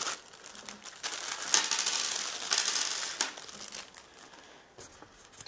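Clear plastic zip-lock bag crinkling and rustling as it is handled and emptied of heat-shrink tubing and small parts. It is loudest in the middle, then a few small clicks near the end as the parts land on the table.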